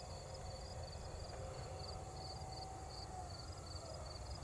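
Crickets chirping steadily in short repeated pulses, with the faint steady whine of a distant 50 mm electric ducted-fan RC jet that dips slightly in pitch and fades about three seconds in. Low wind rumble on the microphone underneath.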